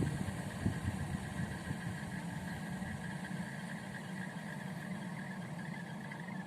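Lada Vesta SW at idle with its Valeo electric radiator cooling fan running: a steady low hum with a thin, steady high tone over it. The fan's shaft has play in its bushing, which the owner blames for a failing bearing and a whistle as it stops.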